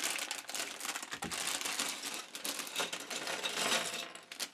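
Plastic bags of LEGO Technic pieces being handled, the bags crinkling and the small plastic parts clicking and rattling inside in quick, irregular ticks.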